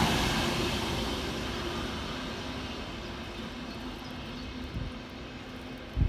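Class 67 diesel locomotive's engine fading away steadily as the train draws off after passing, a low steady drone dying down.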